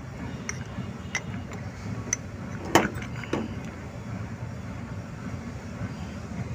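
A few light metallic clicks and knocks of small starter-gear parts being handled and taken apart, the loudest a sharp knock just under three seconds in, over a steady low rumble.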